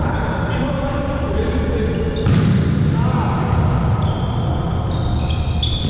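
Volleyball being played in an echoing gym: the ball hits hard twice, at the start and about two seconds in. High squeaks near the end sound like shoes on the court, over a background of voices.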